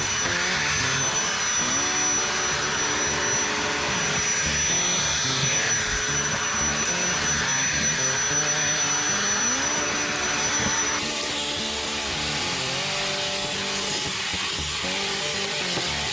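DeWalt DCV501HB 20V cordless handheld vacuum running, a steady high whine over a hiss of air, with background music. About eleven seconds in, the whine jumps to a higher pitch.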